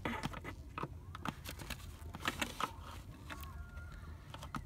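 Scattered small clicks, taps and scrapes of hard plastic trim and a wiring connector being handled by gloved hands, as the electrical plug under a car's rear-console AC vent panel is worked loose.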